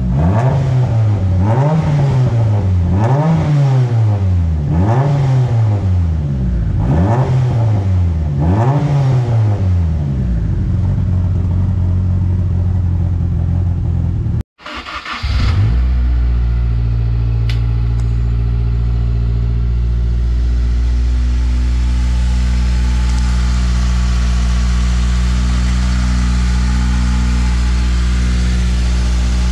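Turbocharged four-cylinder engine blipped five times, about one rev every two seconds, then held briefly. After a short cut it settles into a steady idle.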